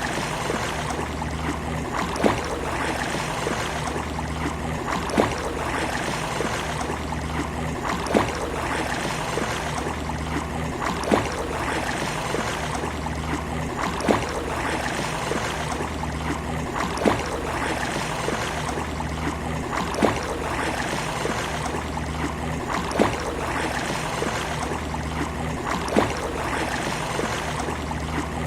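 Steady wash of sea waves on a beach, with a sharp click about every three seconds that recurs at perfectly even spacing.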